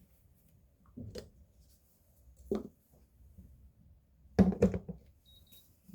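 Handling sounds: a few light knocks of objects being moved or set down, with a louder cluster of knocks about four and a half seconds in.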